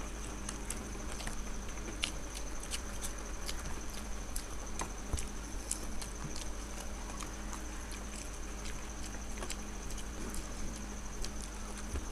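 Chewing and small wet mouth clicks from people eating egg devils (breaded, fried boiled eggs), irregular and scattered. A thin steady high whine and a low hum run underneath.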